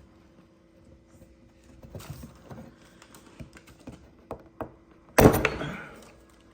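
Small metal clicks and knocks as a flathead screwdriver is worked against a stuck hole saw arbor. About five seconds in comes a loud metallic clank with a short fading rattle, as force is put on the part to break it loose.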